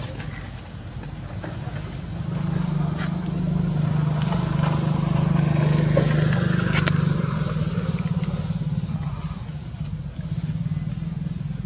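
A motor engine running, growing louder over a few seconds and then easing off like a passing vehicle, with a couple of faint clicks.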